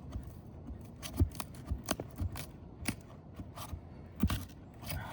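Asphalt shingle being worked loose from a tight adhesive seal strip: irregular scraping, crackling and sharp clicks of the tool and shingle, with the loudest knocks about a second in and about four seconds in.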